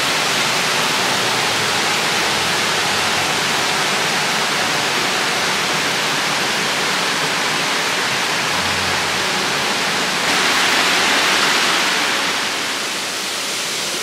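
Mountain stream water rushing, a steady hiss of small waterfalls and cascades pouring over rocks into pools. It swells a little louder and brighter about ten seconds in, then eases slightly.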